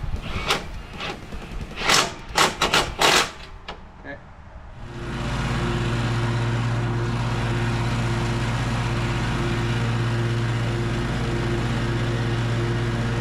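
A few sharp clicks and knocks in the first four seconds, then from about five seconds in a Toro Grandstand stand-on mower's engine running steadily.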